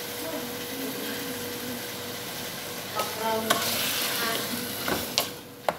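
Diced tomatoes sizzling as they sauté in a metal pot, stirred with a wooden spoon. A few sharp knocks of the spoon against the pot come in the second half.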